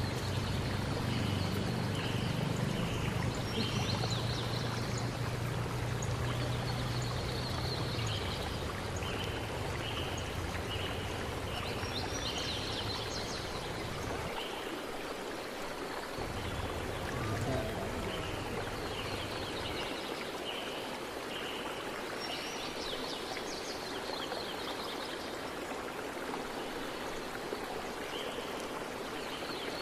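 Steady outdoor hiss with short, faint high chirps repeating throughout, and a low hum during the first several seconds.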